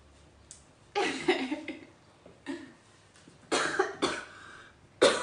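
A person coughing, about five short, loud coughs spread over the few seconds.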